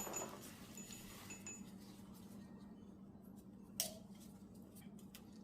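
Faint light metallic clinks of small parts and tools being handled, a few short high pings in the first second and a half and one sharp click a little after the middle, over a steady low hum.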